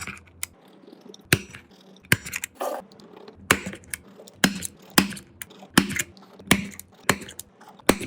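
Small repair tools clicking and scraping against a phone: about a dozen sharp clicks, roughly one every half second to second, with short scrapes in between.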